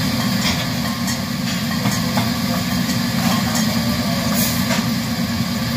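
Commercial gas wok range running with a steady low roar, a few light clicks over it.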